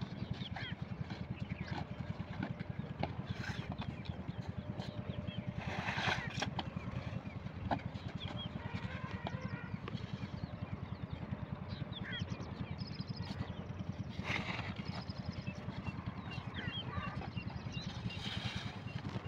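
8 hp single-cylinder diesel pump-set engine running steadily at an even, fast beat while it pumps irrigation water, with birds chirping over it.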